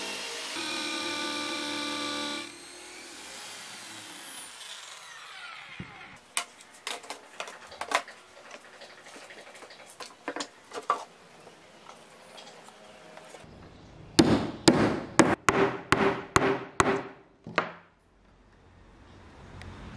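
Power drill running steadily as it bores into a pine board, then winding down with a falling whine after about two and a half seconds. Scattered wooden knocks follow as pieces are handled, and near the end comes a quick run of about eight loud knocks.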